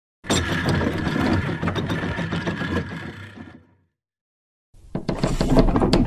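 A mechanical clatter full of rapid clicks that fades out after about three and a half seconds. After a second of silence, a run of sharp knocks begins near the end.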